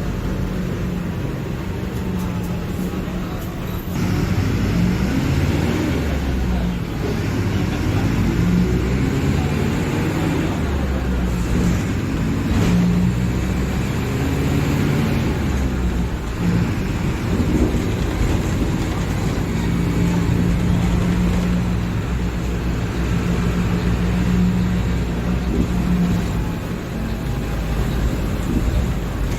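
Diesel engine of a Mercedes-Benz OF-1721 BlueTec 5 bus running as the bus drives, its pitch rising and falling. It gets louder about four seconds in and stays louder.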